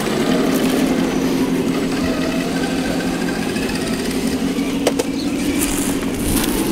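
Scale RC crawler truck running, a steady low mechanical hum.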